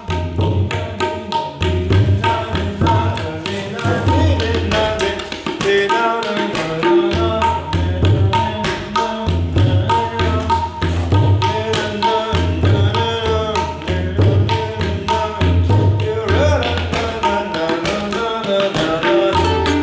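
A tabla and a ukulele playing together. A fast, steady stream of tabla strokes runs throughout, with deep bass-drum strokes recurring about once a second, under plucked ukulele notes.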